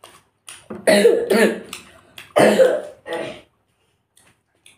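A woman coughing and clearing her throat in a run of harsh bursts, loudest about a second in and again about two and a half seconds in.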